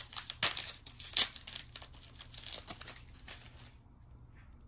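Foil Pokémon Champion's Path booster pack wrapper being torn open and crinkled in the hands, with the loudest rips about half a second and just over a second in. Smaller crinkles follow and die away after about three and a half seconds.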